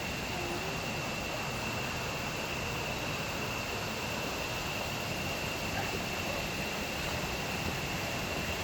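Steady rushing of a small stream, with a constant thin high-pitched whine above it.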